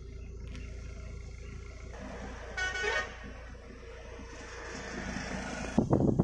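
Road traffic with a vehicle horn tooting once briefly, about two and a half seconds in. Near the end comes loud road and wind noise from a moving car.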